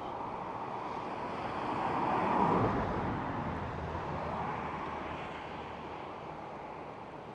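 A road vehicle driving past on the highway: its noise swells to a peak about two and a half seconds in, drops in pitch as it goes by, then slowly fades.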